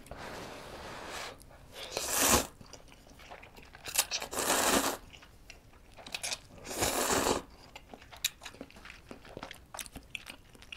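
Instant ramen noodles slurped up close to the microphone, three long noisy slurps about two and a half seconds apart, with wet chewing clicks in between.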